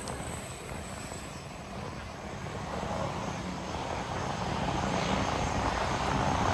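Aircraft engine noise: a steady rumble that fades over the first second or two, then slowly builds again toward the end.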